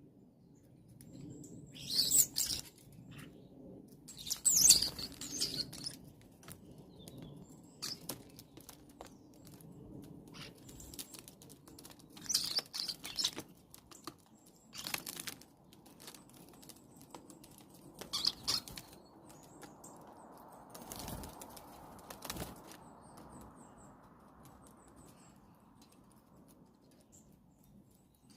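Starlings feeding, giving squeaky high calls, with short bursts of wing flapping every few seconds as birds come and go, the loudest about four seconds in.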